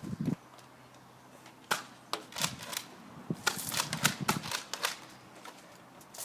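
Nerf foam-dart blasters being pumped and fired, a quick, irregular run of sharp plastic clacks and pops, densest from about two to five seconds in.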